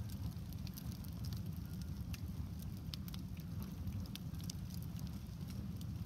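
Campfire burning shoes and a shoe rack: scattered crackles and small pops over a steady low rumble.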